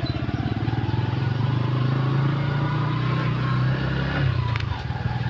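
Motorcycle engine of a sidecar tricycle running as it rides along, a steady low engine note that eases off about four and a half seconds in.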